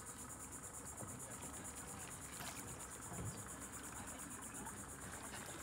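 Steady, high-pitched insect chirring that pulses rapidly, with a brief low, soft sound about three seconds in.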